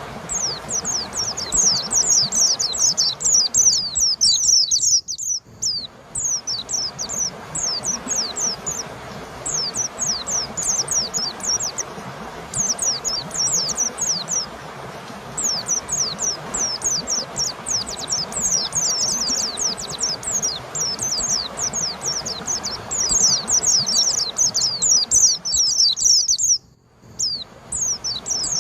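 White-eye (pleci) singing: a rapid, almost unbroken stream of high, quick downward-slurred chirps. The song breaks off briefly about five seconds in and again near the end.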